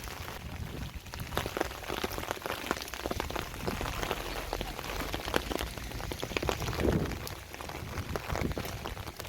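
Rain falling, with many irregular drops striking a hard surface.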